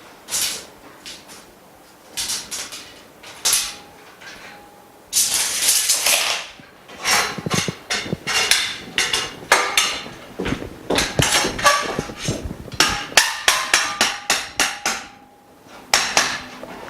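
Knocks and clatter of frame bars and fittings being handled and fitted together while assembling a workstation frame. A scraping rattle comes about a third of the way in, and a quick run of taps about three quarters in.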